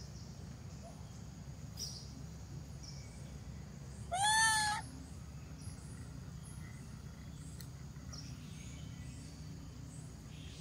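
A mother monkey's single crying call about four seconds in, the cry of a mother missing her baby: a short arched coo that rises and falls in pitch and lasts under a second. A steady low hum runs underneath, with faint high chirps now and then.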